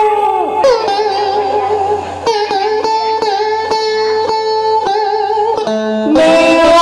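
Cải lương backing music with no singing: a plucked guitar melody with wavering, bending notes.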